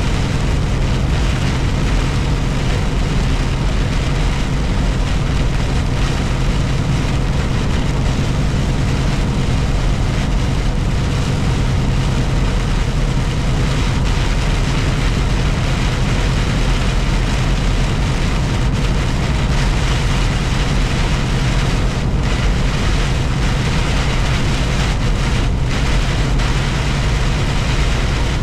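Heavy rain pouring down in a steady, even downpour, with a continuous low hum underneath and no thunderclaps.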